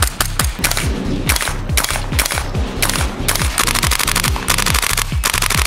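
Music with a steady, deep beat, over which a gas blowback airsoft MP5K fires rapid full-auto bursts from about three seconds in until near the end.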